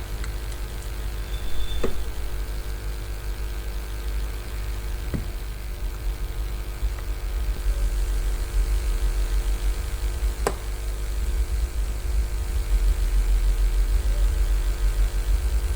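Steady low machine hum with a few faint tones above it, broken by three brief clicks.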